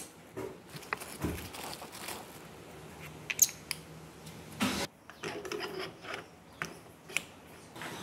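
Scooter variator parts being handled and fitted together: small metal clicks, taps and light scrapes as the ramp plate is set into the housing over the roller weights. There is a sharper click a little over three seconds in and a short scrape just before the five-second mark.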